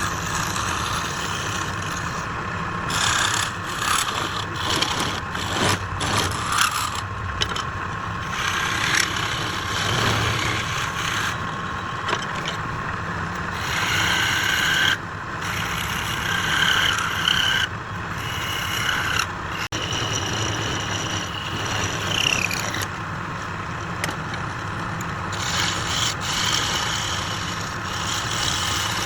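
Wood lathe running with a steady motor hum while a turning tool scrapes and cuts the spinning wood in repeated passes, with brief high squeals now and then.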